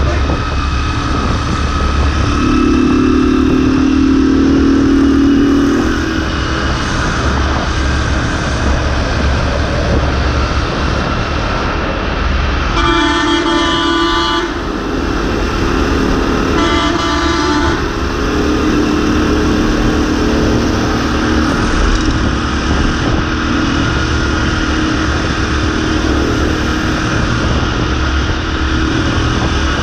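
Motorbike engine running steadily, with wind rushing over the microphone as it rides. About halfway through, an overtaking coach bus sounds its horn twice, two blasts a few seconds apart, each lasting over a second.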